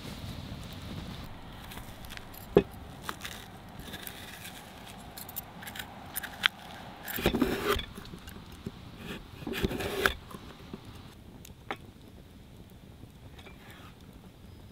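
A large knife cutting through a green-skinned squash onto a wooden cutting board: two longer cuts, about seven and about nine and a half seconds in, among scattered clicks and clinks of utensils, the sharpest click a few seconds in.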